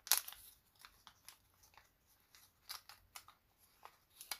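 Folded origami paper crinkling and crackling in short, crisp bits as fingers are eased into the pockets of a paper fortune teller; the loudest crackle comes right at the start.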